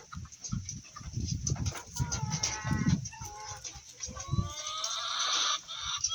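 Poultry pecking at scattered corn, making a rapid, irregular tapping that sounds like rain. Farm birds call over it: a pitched call about two seconds in, and a harsher, longer cry near the end.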